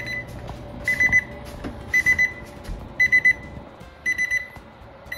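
Digital probe meat thermometer's alarm beeping in quick runs of about four high beeps, repeating about once a second. It signals that the brisket's probe has reached the set alarm temperature of 198°F.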